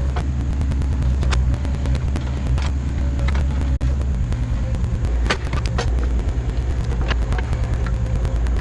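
Volvo EC35C mini excavator's diesel engine running steadily under digging work, with scattered sharp knocks and clanks, the loudest about five seconds in.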